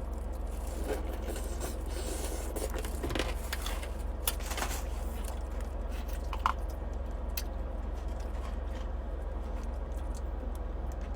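Crayfish being peeled and eaten by hand: scattered small clicks, crackles and scrapes of shell, over a steady low hum.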